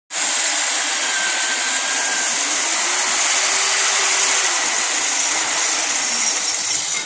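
Electric diamond core drill on a wall-mounted stand, running with its core bit cutting into concrete: a loud, steady high-pitched whir and hiss that drops off sharply at the very end.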